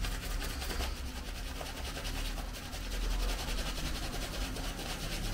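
Synthetic shaving brush scrubbing lather into beard stubble: a faint, rapid swishing of bristles over the skin.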